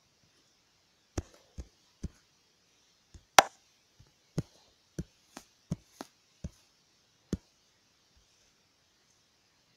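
About a dozen short, sharp taps on a tablet's touchscreen, picked up by the tablet's microphone, at irregular spacing. The loudest tap comes about a third of the way in.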